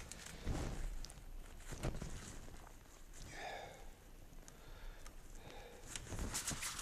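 Handling noise from a soft-sided nylon bird carrier backpack being assembled: a few light knocks and fabric rustling, with a burst of scratchy rustling near the end.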